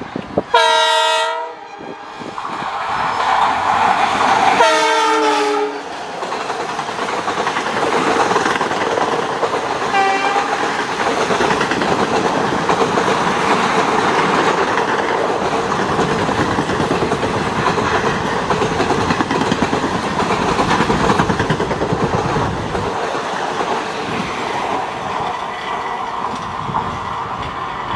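Indian Railways WDG-4 (EMD GT46MAC) diesel locomotive sounding its horn twice, the second blast dropping in pitch as the locomotive passes. The express coaches then roll past in a long, steady rush of wheel and rail noise.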